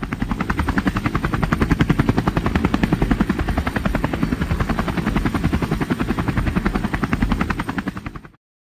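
Steady helicopter-style rotor chopping, about ten beats a second, that cuts off suddenly near the end.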